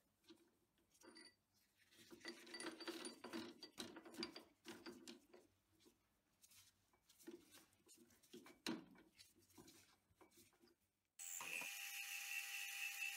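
Faint scattered clicks and rustles of hands handling the workpiece at a stopped hobby metal lathe. About 11 seconds in, the sound cuts abruptly to the lathe running, a steady motor and gear whine with a high hiss.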